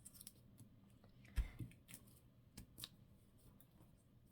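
Faint scattered clicks and light taps of paper and craft tools being handled on a desk, with one soft thump about a second and a half in.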